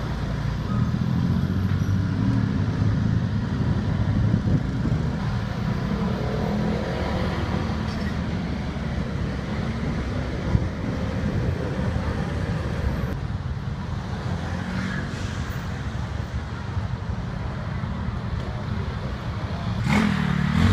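Motorbike taxi ridden through city traffic: the engine running with road and wind noise. There is a short sharp noise near the end.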